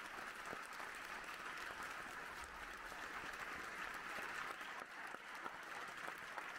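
Audience in a concert hall applauding steadily, many hands clapping at once.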